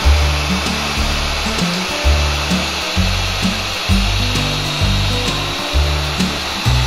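Steady whirring of a Hitachi hollow-chisel mortiser's electric motor, over background music with a slow bass line.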